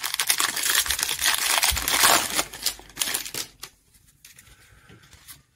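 Foil trading-card pack wrapper being torn open and crinkled for about three seconds, then a few faint ticks.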